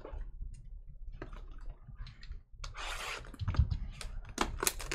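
A shrink-wrapped box of trading cards being handled and opened: light clicks and rubbing, then from about two and a half seconds in the crackle of the plastic wrap being torn and crinkled, with sharp clicks.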